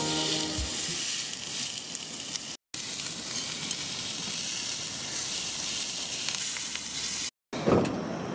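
Beef steak sizzling on a hot ridged cast-iron grill pan, a steady searing hiss that cuts out twice for a moment. A short louder noise comes near the end.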